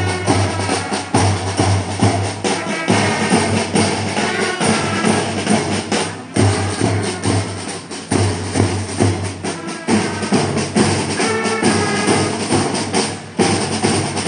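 Marching band playing outdoors: bass drums and snare drums beating a march rhythm, with short pitched phrases from the brass instruments over the drums.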